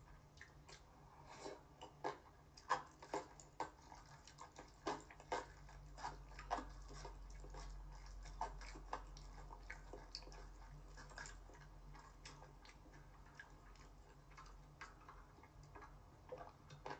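Faint close-miked eating sounds of someone chewing spicy cold noodles (bibim-naengmyeon), a run of irregular wet clicks and smacks from the mouth and chopsticks, over a low steady hum.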